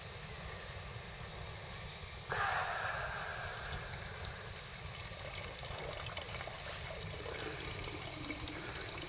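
Shower water running, with a sudden rush as the spray comes on about two seconds in, then a steady hiss of falling water.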